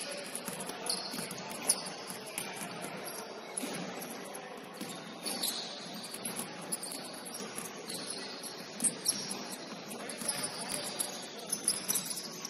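Basketball sneakers squeaking on a hardwood gym floor in short, irregular chirps, mixed with the irregular thuds of several basketballs being dribbled and shot.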